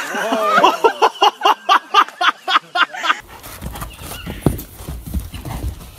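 Laughter in quick repeated bursts, about four a second. After a cut about three seconds in, a horse's hoofbeats sound on a dirt arena.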